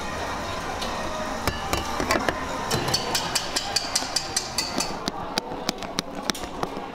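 Silicone spatula knocking and scraping against a glass mixing bowl while folding meringue into pancake batter: rapid, even clicks, about four a second, over most of the stretch.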